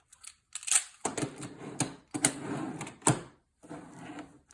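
Plastic Magna-Tiles magnetic building tiles clacking and rattling as they are picked from a pile and snapped together edge to edge in a row, in four or five short bursts of clicks with brief pauses between.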